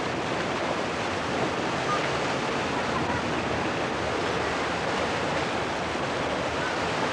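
Sea waves breaking and washing over rocks along a pebble shore: a steady rush of surf.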